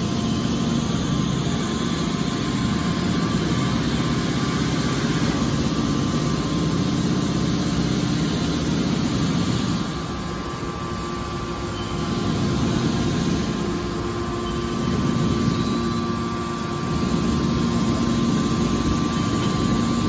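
Hydraulic scrap-metal baler running: its hydraulic power unit hums steadily with a few held tones, the level dipping and swelling slightly as the ram pushes a compressed bale of scrap out of the chamber.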